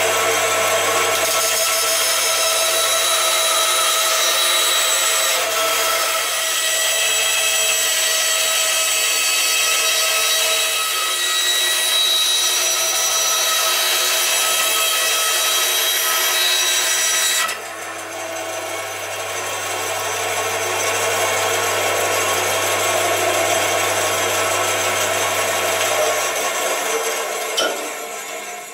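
A band saw cutting wood: a steady machine hum under a hiss of sawing and several fixed high ringing tones. About two-thirds of the way through, the noise drops suddenly and the saw runs on more quietly, then fades out near the end.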